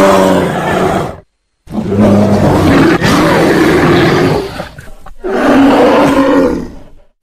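Bear roaring: one roar stops about a second in, then after a brief gap of dead silence come two more long roars, the second starting about five seconds in.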